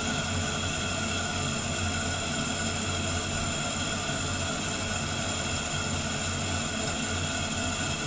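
Bathroom ceiling exhaust fan, about ten years old, running with a loud, steady drone: a low hum and several steady whining tones. This is the abnormal noise of the worn fan, which came back a year after the fan was cleaned of dust.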